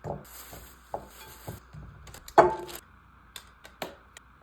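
Kitchen items being handled and set down: a series of knocks and clinks, the loudest about two and a half seconds in, with a rustle near the start.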